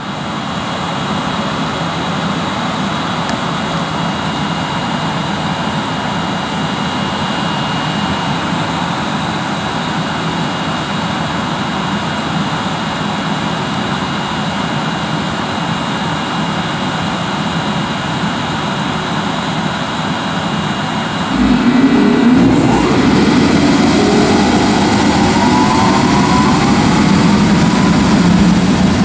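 EF64 1000-series electric locomotive standing with its equipment blowers running, a steady hum and hiss. About 21 seconds in it grows louder and a whine rises in pitch over several seconds, then holds steady: the locomotive powering up for departure.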